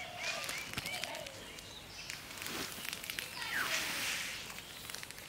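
Uncooked rice poured from a burlap sack onto a woven plastic mat: a hissing rush of falling grains with scattered small ticks, loudest about three and a half to four and a half seconds in. A few short bird chirps sound in the first second.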